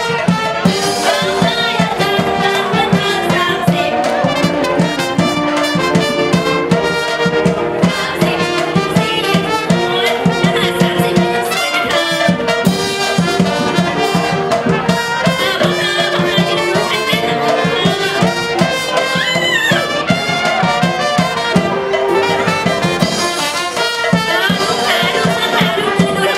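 Brass-band music with trumpets and trombones playing a lively tune over a steady beat.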